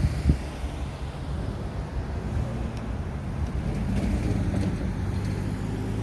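Road traffic at a signalled crossroads: a motor vehicle's engine running at low revs, a steady low hum that swells a little about four seconds in.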